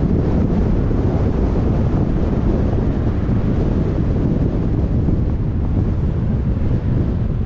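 Wind rushing over a GoPro's microphone on a moving car, heard as a steady, loud low rumble along with road noise.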